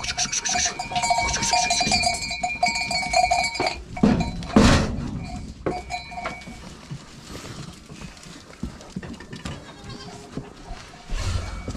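Goats bleating: goat kids and nanny goats calling to each other, with several calls and the loudest about four to five seconds in.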